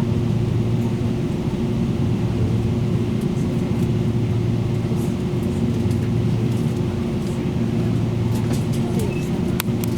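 Tze-Chiang express train heard from inside the carriage while running: a steady low hum and rumble, with a few sharp clicks near the end.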